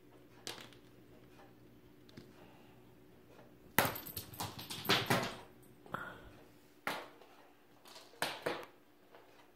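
A cat at play knocking a toy or object about: a quick burst of clattering clicks and rattles about four seconds in, then a few single sharp clicks near the end, over a low steady room hum.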